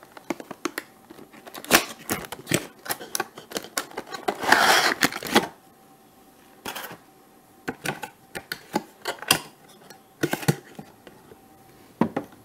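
Cardboard model box being handled and opened by hand: a quick run of clicks and knocks, a longer rustling scrape about four to five seconds in, then scattered clicks and taps.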